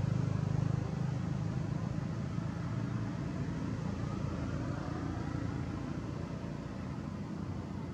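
A steady low rumble with a noisy hiss above it, slowly getting quieter toward the end.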